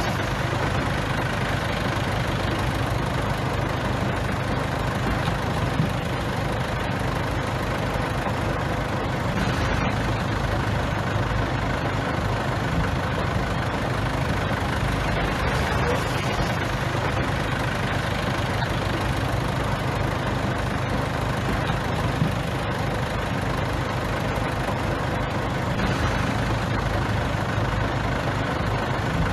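Bulldozer's heavy diesel engine running steadily, with a constant low hum and no change in pace.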